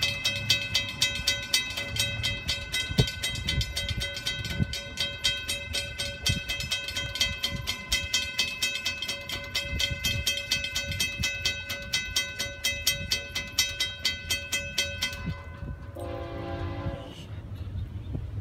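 Railroad grade-crossing bell ringing in rapid, even strokes, stopping about fifteen seconds in. A short blast of an approaching freight locomotive's horn follows.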